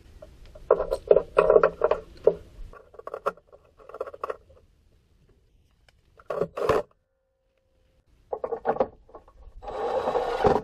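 Hand work on a car's radiator plumbing: irregular clusters of short knocks and clicks as parts are handled, broken by gaps of silence. Near the end comes a brief rasping rush.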